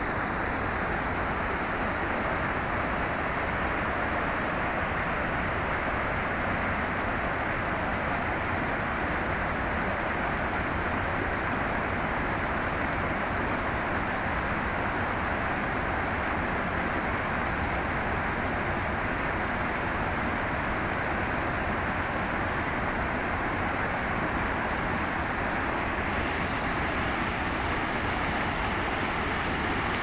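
Shallow mountain stream rushing over rocks, a steady unbroken rush of white water.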